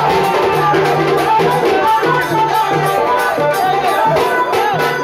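Loud music played over a DJ sound system, with a steady percussion beat under a wavering melody.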